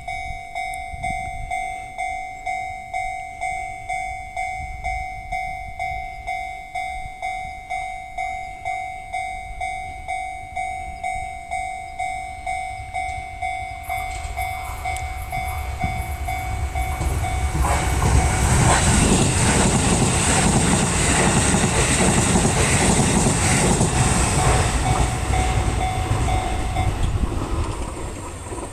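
Japanese level-crossing warning bell ringing in a steady repeating ding. A Shin-Keisei Electric Railway train then approaches and runs over the crossing with a growing rumble and wheel clatter, loudest in the second half. The bell stops near the end as the train clears.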